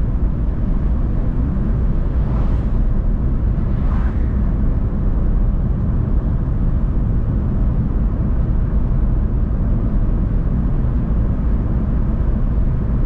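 Steady low rumble of a car cruising on a highway, its engine and tyre noise heard from inside the car, with no change in speed.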